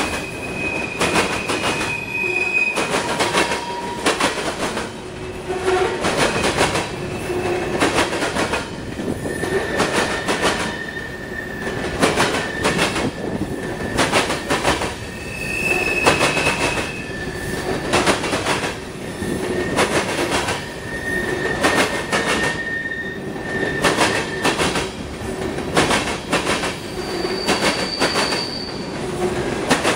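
Freight train cars rolling past, their wheels clanking again and again over the rail joints of a diamond crossing. Short, high wheel squeals come and go.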